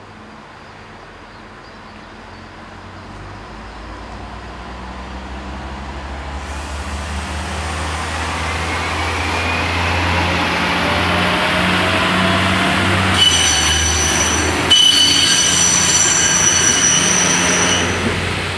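Bombardier Talent diesel railcar approaching and passing: engine and rail noise grow steadily louder, with a rising whine. Over the loudest part a high-pitched squeal sets in, breaking off briefly once, and the sound starts to fade near the end.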